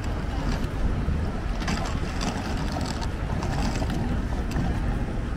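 Outdoor street ambience on a busy shopping street, with wind buffeting the microphone as a steady low rumble under a wash of noise. A few light clicks can be heard partway through.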